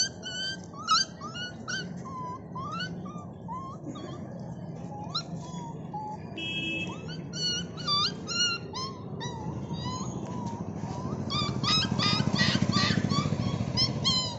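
Puppies play-fighting, giving many short high squeaks, yips and whimpers, over a low steady rumble of road traffic that grows louder near the end.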